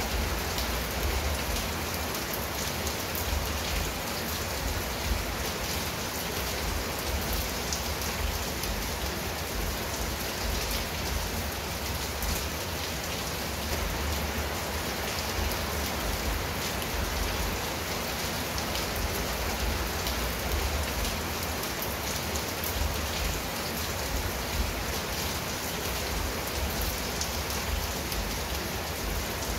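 Steady rain falling on a clay-tile roof and leafy shrubs: an even, unbroken hiss of many drops.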